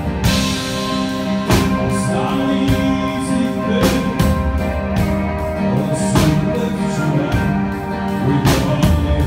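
Live band playing: sustained chords over a drum kit, with a heavy drum-and-cymbal hit about every two and a half seconds.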